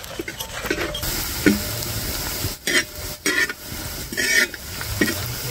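Sliced onions frying in ghee in a pan, sizzling, while a ladle stirs and scrapes them around in short strokes; the sizzle grows louder about a second in.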